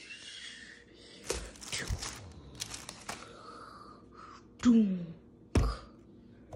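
Packages and bottles handled on a stone kitchen counter: a rustling hiss at first, a few light knocks, then a loud thud about five and a half seconds in as a carton of protein shake is set down on the counter. Just before the thud comes a short sound that falls in pitch.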